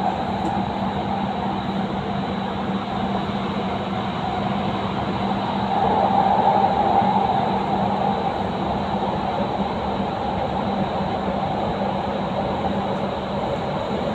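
Doha Metro Gold Line train running through a tunnel, heard from inside the carriage: a steady rushing rumble of the wheels on the rails with a low hum, growing a little louder about six seconds in.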